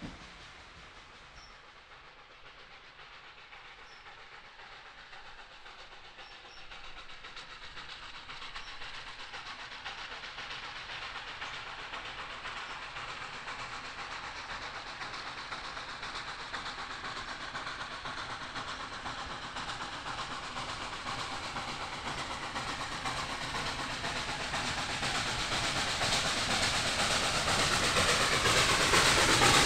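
Hunslet Austerity 0-6-0 saddle-tank steam locomotive hauling a train of carriages toward the listener, its sound growing steadily louder as it approaches, with the rattle of wheels on the rails coming through near the end.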